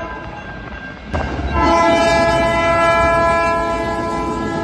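Train air horn: one blast trails off in the first second, then after an abrupt cut a second long, loud blast starts about a second in and holds steady.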